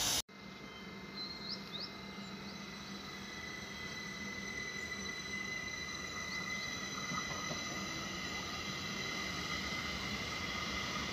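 Distant electric multiple unit approaching a station: a steady high-pitched whine over a low rumble, slowly growing louder. A few short chirps come about a second and a half in.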